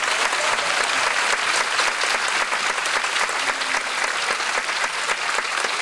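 Theatre audience applauding: steady clapping of many hands.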